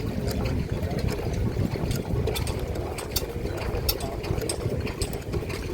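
Vintage stationary engines running: a steady low rumble with sharp clicks and knocks coming at irregular intervals, about one or two a second.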